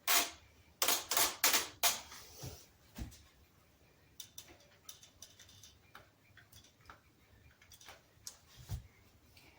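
Sharp clicks and taps: five loud ones in quick succession in the first two seconds, then fainter scattered ticks and a couple of dull low knocks.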